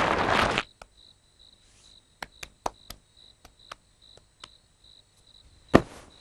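A wooden bed scraping across the floor as it is pushed, stopping about half a second in; then cricket chirping as night-time ambience, with light scattered clicks and a thump near the end as the bed is climbed onto.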